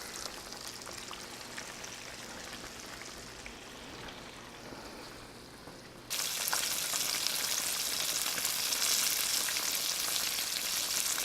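Breaded turkey cutlets shallow-frying in hot oil in a pan, a steady crackling sizzle. About halfway through the sizzle suddenly becomes much louder and hissier.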